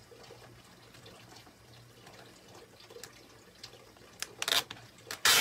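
A few short crinkles of plastic craft transfer sheets being handled, the loudest one near the end.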